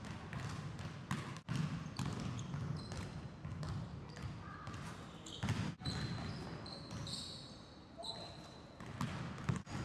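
Basketball bouncing on a hardwood gym floor during a shooting drill, several separate thuds, with short high sneaker squeaks in the latter half.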